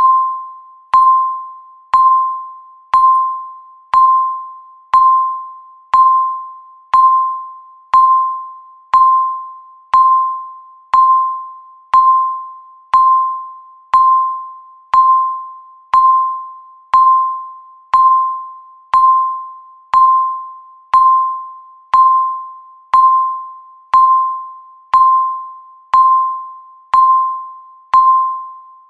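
Countdown-timer beep ticking off the seconds: a single mid-pitched electronic tone once a second, each starting sharply and fading away before the next.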